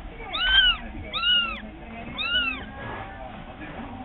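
Calico kitten meowing repeatedly: three short, high meows about a second apart, each rising and then falling in pitch.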